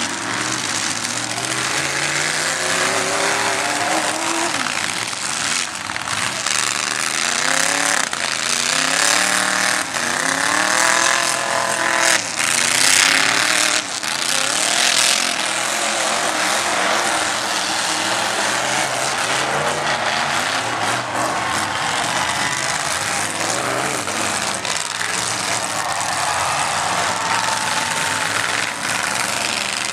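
Several demolition-derby pickup trucks' engines running and revving up and down at once, with a louder harsh burst about twelve seconds in.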